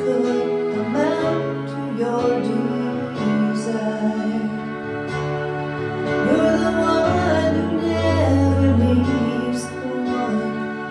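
Slow, gentle worship music played on a Roland RD-700 digital piano, with long held bass notes under the chords.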